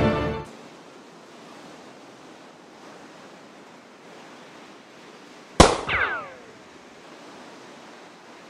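Music cuts off half a second in, leaving a steady wash of surf. About five and a half seconds in there is one sharp bang, followed by a whine that falls in pitch over about a second.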